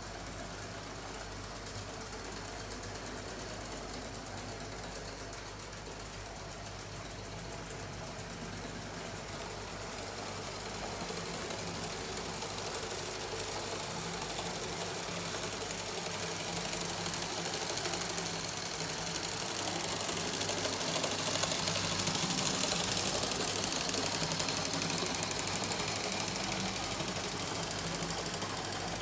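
Twin Mamod live-steam engines of a Meccano model locomotive running: fast mechanical ticking and clatter from the engines and gearing over a steady steam hiss, which grows louder about ten seconds in.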